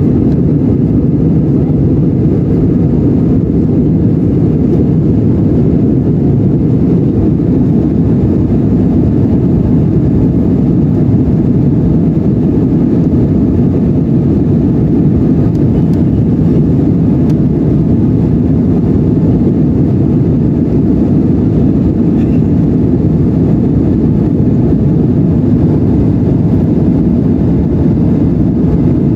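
Steady, loud cabin noise of an Embraer E175 in its climb after takeoff: the rumble of its two GE CF34 turbofans and the rush of air past the fuselage, heard from a window seat.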